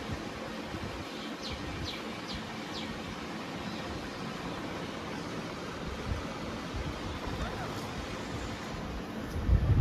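Steady wind noise, with four short high chirps from a bird between about one and a half and three seconds in. Near the end a louder low rumble of wind hits the microphone.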